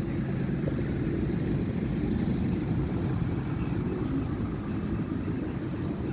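City bus engine and road noise: a steady low rumble with no distinct changes.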